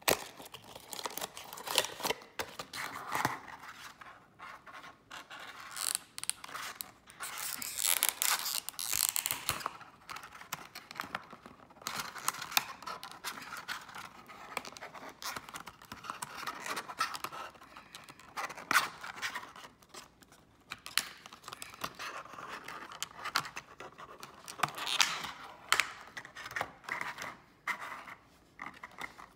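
Cardboard box and plastic packaging being handled: scraping, rustling and sharp clicks as a diecast model aircraft's box is opened and its plastic tray slid out, with a plastic bag crinkling.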